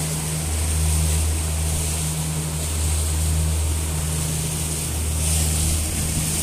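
Speedboat engine running at cruising speed, a steady low drone that swells and eases slightly, with water rushing past the hull under it.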